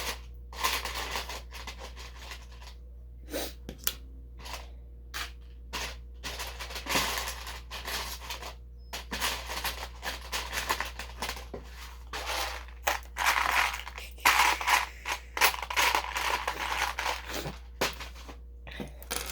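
Loose plastic LEGO pieces clicking and rattling as a hand sifts and picks through them, in irregular bursts of clatter that grow busier in the second half.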